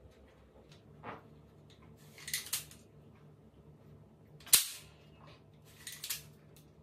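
Wooden slingshot toy gun being worked and fired: a string of sharp clacks and snaps. The loudest is a single crack about four and a half seconds in, with pairs of quick snaps before and after it.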